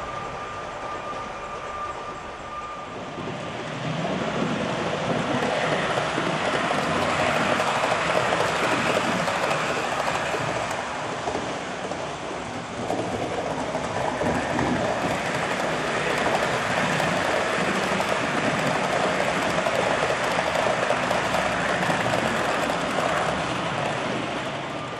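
HO scale model trains running on the layout's track: a steady rolling noise that grows louder about four seconds in, dips briefly around halfway and eases near the end.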